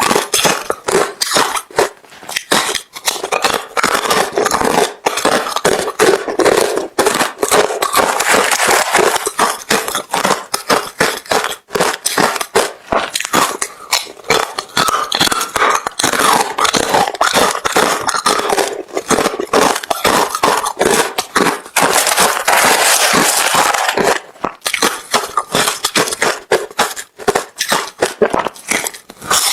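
Close-miked chewing of hard refrozen crushed ice: dense, rapid crunching and crackling with only brief pauses.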